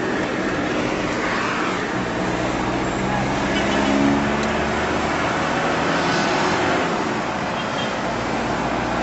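Steady engine and tyre noise from inside a moving vehicle's cabin, driving at road speed on a highway.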